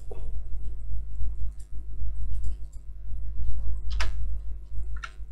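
Two sharp computer-mouse clicks, about four and five seconds in, over a steady low hum.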